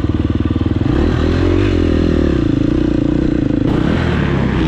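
Dirt bike engine running at low revs with an even beat, then revving up about a second in and holding steady revs as it pulls away.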